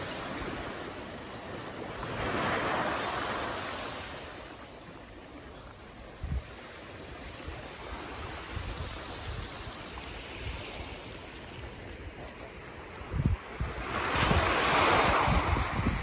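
Small waves breaking and washing up a pebble beach in a steady rush of surf. It swells about two seconds in and again, louder, near the end. Gusts of wind bump against the microphone.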